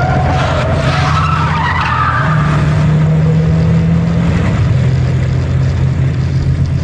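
Loud, steady low electrical drone in several layers with a hiss over it and faint wavering squeals in the first two seconds. Its pitch steps up about two seconds in and drops back about four and a half seconds in.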